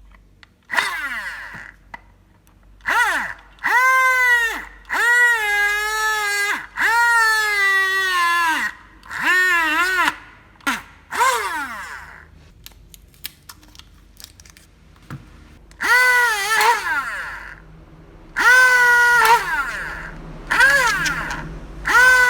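Homemade mini hand drill's small 12 V DC motor whining in about ten short bursts, each one spinning up quickly and winding down as it is switched on and off. During the longer runs the pitch sags and recovers.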